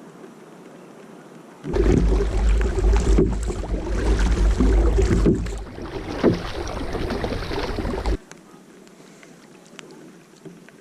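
Loud rush of wind and water noise on the microphone with a deep rumble, starting suddenly about two seconds in and cutting off about six seconds later, over a quieter steady hiss.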